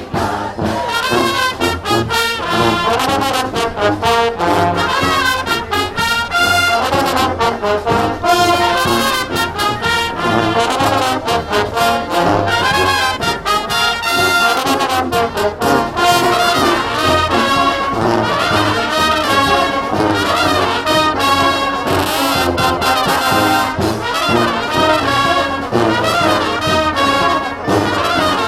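Brass street band playing: trumpets and trombones over a steady drum beat.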